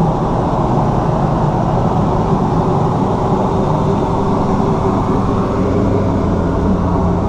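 Travel trailer's air conditioner running, a steady hum and rush of air heard from inside the trailer.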